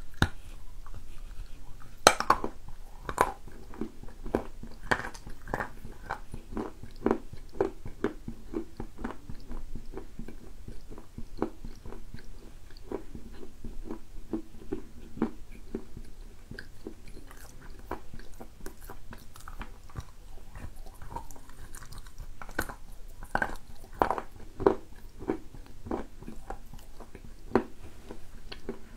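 A person biting and chewing a moist, dark lump of edible clay, with a long run of short crunches and mouth sounds; the sharpest bites come about two seconds in and again around twenty-four seconds in.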